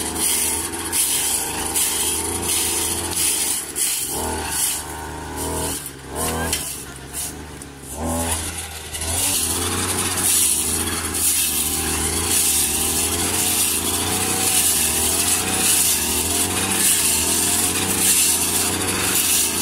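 Brush cutter engine running at high speed, its metal blade chopping dried grass into chaff. It drops to a lower, quieter speed about five seconds in and revs back up around eight seconds.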